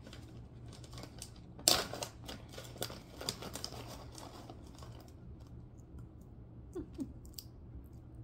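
Plastic candy pouch crinkling and rustling as hands reach in and take out pieces of freeze-dried gummy candy, with a sharp crackle about two seconds in, then quieter handling.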